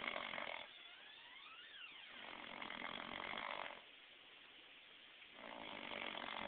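A passed-out drunk man snoring loud, three snores each a second or more long with a couple of seconds' gap between them. A brief whistle rising and then falling comes between the first two snores.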